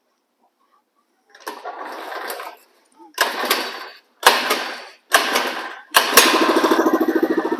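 Harbor Freight Predator engine on a McLane reel mower being started: it fires briefly and dies on four short tries, then catches about six seconds in and keeps running with a rapid, even beat.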